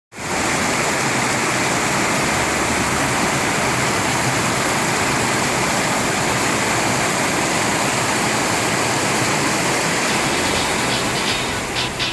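Mountain stream water rushing steadily over rocks, a constant, even roar. Music fades in over it near the end.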